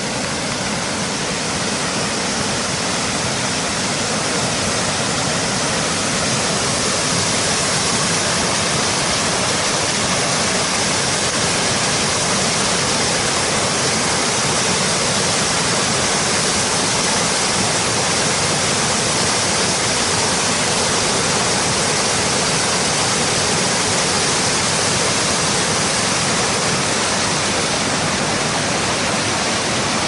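Wide river waterfall pouring over rock ledges: a loud, steady rush of falling water.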